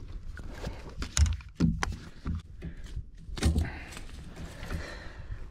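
Handling noise in a plastic fishing kayak: a few sharp knocks and clatters as a freshly caught largemouth bass is taken out of the landing net.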